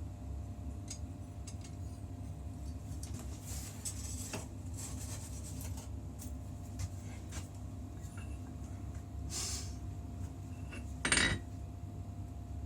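Light clinks and handling of metal tools, with soft scrapes and one louder metallic clink about eleven seconds in, over a steady low hum.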